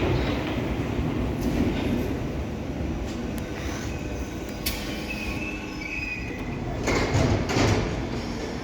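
London Underground 1972 Stock tube train running on the rails with a steady rumble. A thin, high wheel squeal comes in about five to six seconds in, and the noise grows louder for a moment about seven seconds in.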